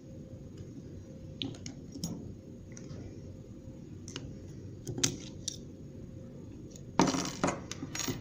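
Metal clicks and clinks from snap ring pliers and steel parts on an AC compressor as the snap ring holding the clutch field coil is worked out: scattered single clicks, then a quick run of rattling clinks about seven seconds in.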